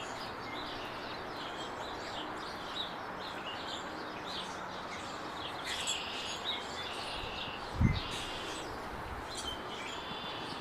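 Small birds chirping and calling over and over, over a steady background hiss. A single low thump sounds near the end.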